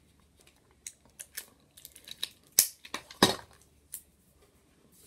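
Clear adhesive tape being handled, pulled and torn from its roll: a scatter of sharp clicks and crackles, loudest about two and a half and three and a quarter seconds in.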